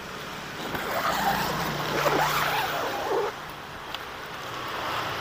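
Clear plastic mattress cover rustling as it is handled and its zipper pulled open, a noisy rustle that swells through the middle, over a low steady hum.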